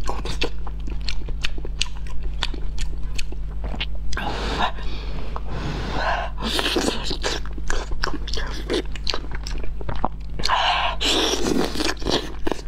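Close-miked eating sounds of someone biting and chewing a large, sauce-soaked piece of braised food: many wet mouth clicks and smacks, with a few longer wet noises, over a faint steady hum.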